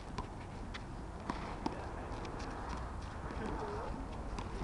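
Handball rally: a few sharp slaps as the rubber ball is struck by hand and smacks off the concrete wall and court, the loudest about a second and a half in.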